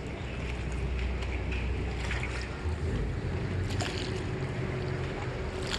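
Ambience aboard a gondola gliding along a canal: steady wind rumble on the microphone over a low wash of water, with a few faint clicks.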